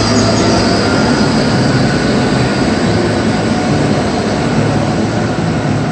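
Hilton Waikoloa Village tram running past along its guideway: a loud, steady running noise with a low hum, easing slightly toward the end.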